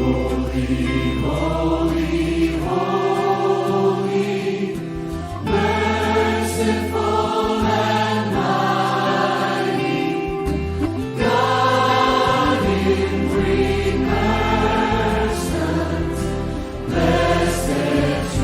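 A worship song sung by a group of voices in long held phrases, over instrumental backing with a bass line that changes note every few seconds.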